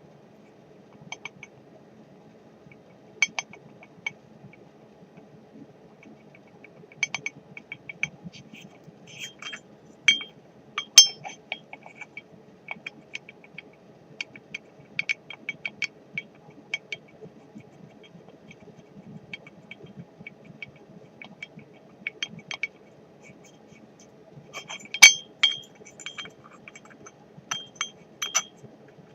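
Irregular light metallic clinks and ticks with a brief ringing, sometimes in quick runs of several a second and louder around the middle and near the end, over a faint steady hum.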